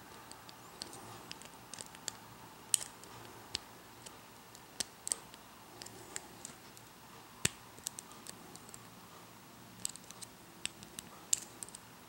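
Small, irregular metallic clicks of a pick working over the pins of an Ace II tubular lock core held under tension, the pins clicking as they set. A few clicks stand out louder than the rest.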